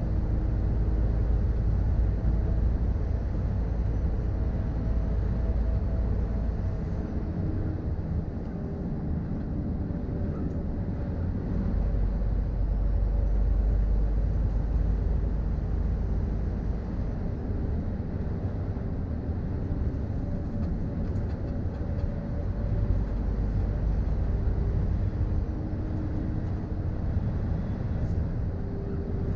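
Inside the cab of a 2013 Scania R440 tractor unit under way: its 13-litre six-cylinder diesel runs with a steady low drone over road rumble, the engine note drifting gently up and down.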